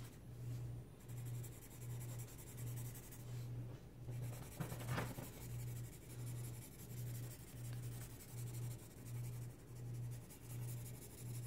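Felt-tip marker scribbling back and forth on paper while colouring in, a soft rhythmic scratching.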